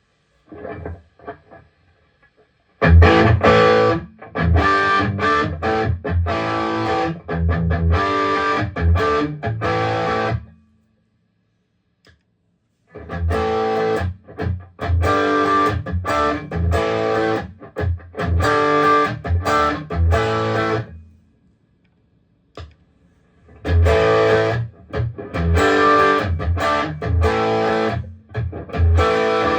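Electric guitar played through a JHS Bonsai overdrive pedal. A few soft plucked notes come first, then a distorted riff is played three times with about two seconds of silence between the passes.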